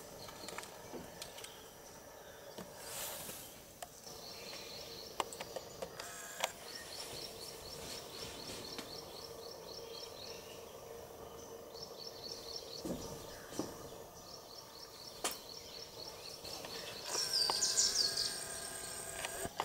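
Outdoor ambience of birds and insects: a rapidly repeated high chirping that comes and goes in long runs, and louder bird calls near the end.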